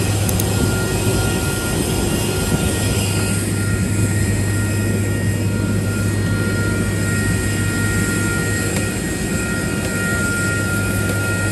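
Jet airliner noise on the airport apron: a loud, steady rush of noise with a low hum and a high, even whine that hold throughout.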